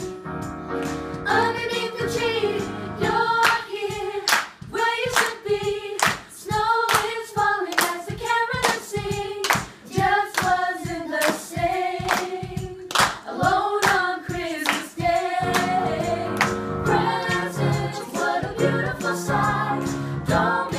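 A small group of family voices, women and children, singing a song together in unison while clapping their hands on the beat. The clapping drops out about fifteen seconds in and the singing carries on.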